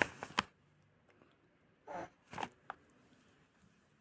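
Faint rustling and scraping of hands working a creamy hair mask through the ends of the hair, with a few soft clicks.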